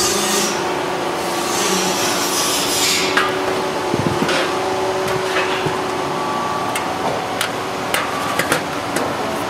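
Blind rivets being pulled to join aluminium wing ribs to the spar: a run of short, sharp snaps in the last few seconds, over a steady hum and hiss of the workshop.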